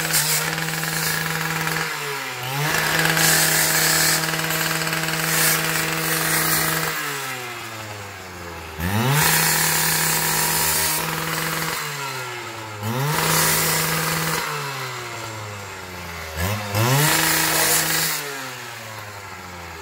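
Handheld cut-off saw (chop saw) cutting through a metal fence. Its motor speed sags several times as the blade bites and snaps back up between cuts, then winds down near the end.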